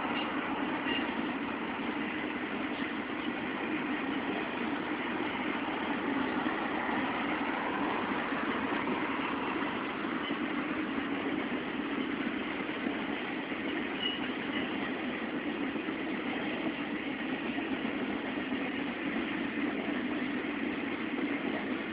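Triple Crown RoadRailer freight train's trailers rolling past on steel rail wheels: a steady rolling noise with no pauses or change.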